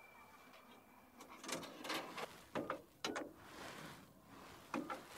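Sharp clicks and knocks of a green public payphone being handled while a call is placed: handset, coin slot and keypad, a few separate clacks with pauses between, the most marked about two and three seconds in and a pair near the end. A faint high steady tone fades out in the first second.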